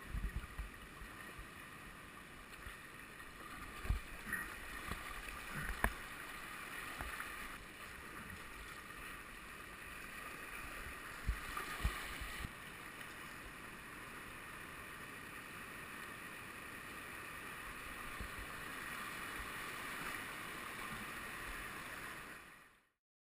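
River water rushing over shallow rapids, heard from a kayak, with a few sharp knocks from paddling and the hull. The sound fades out near the end.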